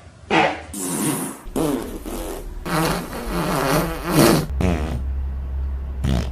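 Fart sound effects: a run of several farts of differing length with wavering pitch, then a long low rumbling one from about four and a half seconds in, and a short one near the end.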